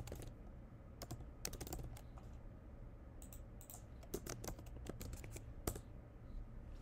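Computer keyboard typing: faint, irregular key clicks in short runs with pauses between them, over a faint low hum.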